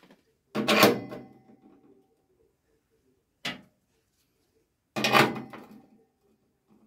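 Two loud clattering knocks on sheet steel with a short metallic ring, about four seconds apart, and a lighter tap between them: plastic fluid reservoir pots being set into a welded steel bracket on the car's inner wing.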